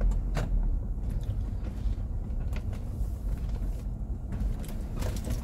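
A car driving, heard from inside the cabin: a steady low rumble of engine and road noise, with a few short clicks or creaks about half a second in and near the end.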